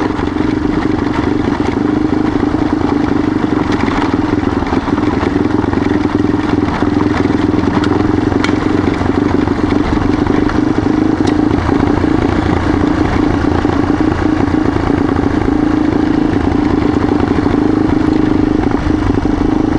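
Yamaha XT dual-sport motorcycle's engine running at a steady pitch on the move, with gravel crackling and ticking under the tyres.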